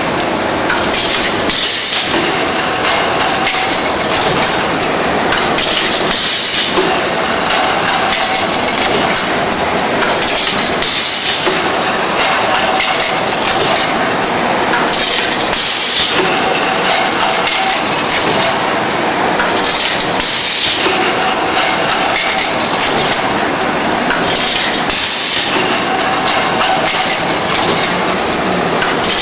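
Automatic packaging machine running on a spray-can line: continuous mechanical clatter, with a louder, brighter burst of hiss and clack every few seconds as it cycles.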